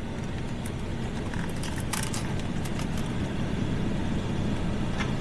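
Truck cabin air conditioning blowing steadily, a constant rushing noise, with a few light clicks of the plastic console parts being handled.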